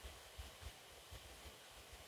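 Near silence: faint hiss with a few soft, low thumps.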